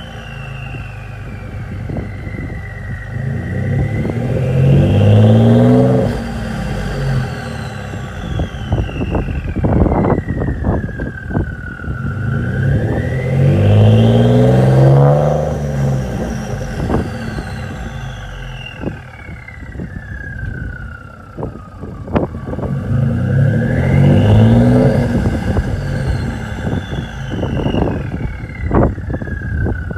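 Ford F-150's 3.5-litre EcoBoost twin-turbo V6 accelerating hard three times, with a loud turbo whistle. Each time the whistle rises in pitch with the engine, then slowly falls away for several seconds as the turbos spin down.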